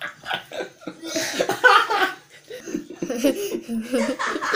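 A man laughing out loud, a hearty open-mouthed laugh.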